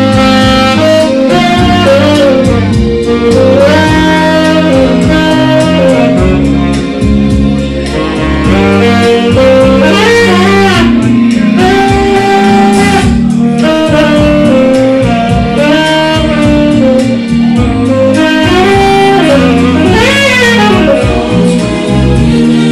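Saxophone playing a jazzy melody live, with notes that bend and slide in pitch, over an accompaniment with a steady low bass line.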